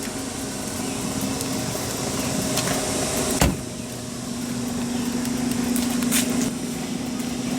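Steady machine hum over background noise, with a single sharp knock about three and a half seconds in and a few brief hissing sounds.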